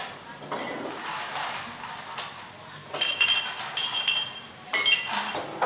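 Tableware clinking on a tabletop: a run of sharp, ringing clinks about three seconds in and a few more near the end.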